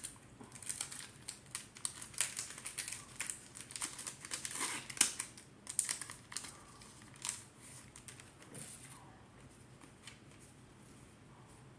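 A foil Pokémon card booster pack crinkling and crackling as it is handled and opened by hand, a fast irregular run of crackles that stops about nine seconds in.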